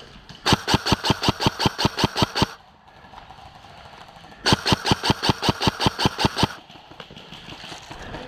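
An airsoft gun firing two full-auto bursts of about two seconds each, a rapid even clatter of roughly eight shots a second.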